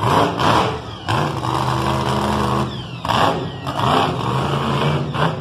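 Monster truck engine revving in repeated bursts of throttle as the truck drives across the dirt, its pitch rising with each rev.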